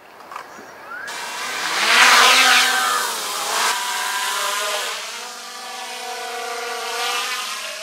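DJI Mini 3 quadcopter's motors and propellers spinning up for take-off: a whine that rises steeply about a second in and is loudest around two seconds. It then holds as a steadier, slightly quieter hovering whine made of several tones.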